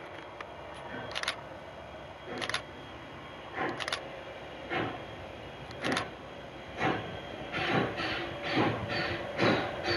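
Steam locomotive CN 89, a 2-6-0 Mogul, chuffing as it works up the line: sharp exhaust beats about one a second, coming faster and louder over the last few seconds as the engine picks up speed and draws nearer.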